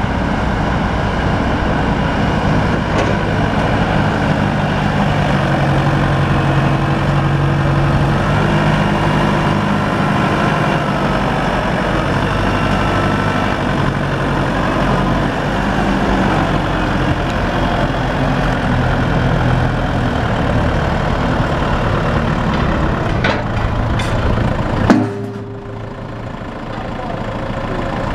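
Claas Elios 230 tractor's diesel engine running, its speed rising and falling as the tractor manoeuvres. Near the end there is a single sharp knock, after which the engine sound drops for a couple of seconds.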